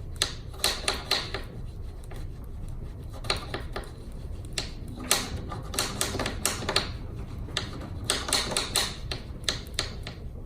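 Hand tools and small metal parts clicking and tapping in irregular clusters of sharp clicks.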